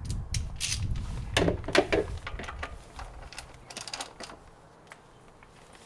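3/8-inch-drive ratchet with a 14mm socket clicking and clanking against a tight engine-oil sump plug as it is worked loose: a run of irregular sharp clicks that stops about four seconds in.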